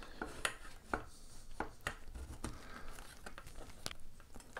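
Faint scattered clicks and light knocks of a hard plastic Gemmy life-size skeleton prop as it is handled and slid onto its stand.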